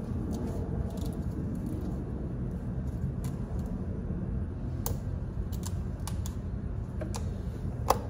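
Light plastic clicks and taps of a motor oil bottle and funnel being handled while oil is poured into the engine, over a steady low rumble. The taps come scattered in the second half, the sharpest one near the end.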